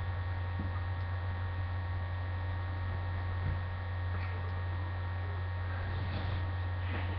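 Steady low electrical hum with a few thin, faint higher tones over it, unchanging throughout. A faint breathy noise comes in near the end.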